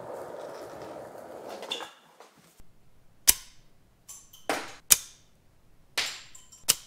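Steady background noise that cuts off about two seconds in, then five sharp plastic clicks and snaps, unevenly spaced, from the 3D-printed mini crossbow being handled and loaded.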